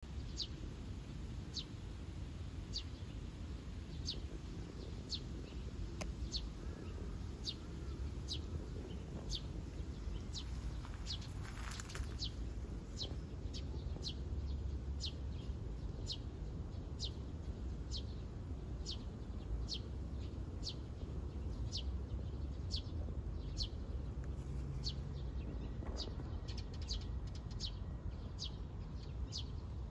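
A small bird calling a short, high chirp that drops in pitch, over and over about once a second and a little faster near the end, over a steady low rumble. A brief rushing noise sounds about eleven seconds in.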